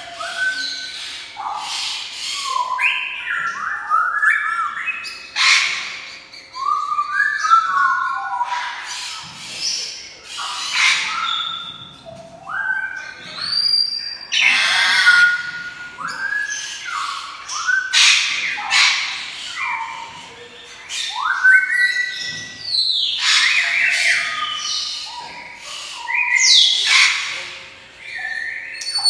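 African grey parrot calling: a string of short whistled notes that slide up and down, mixed with harsh squawks.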